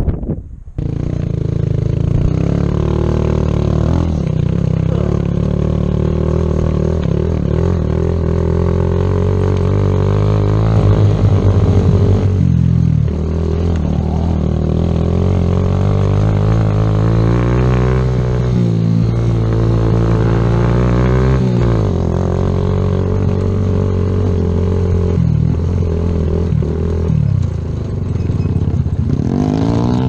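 Kawasaki Z125 Pro's single-cylinder 125cc four-stroke engine running under way on a dirt track, its pitch rising and falling several times with throttle and gear changes.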